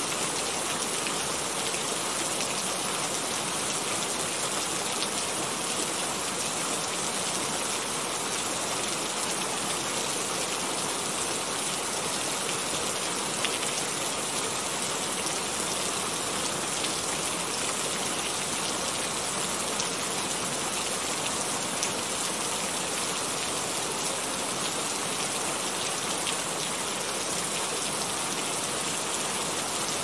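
Steady rain, an even hiss of drops with a few faint individual ticks and no thunder.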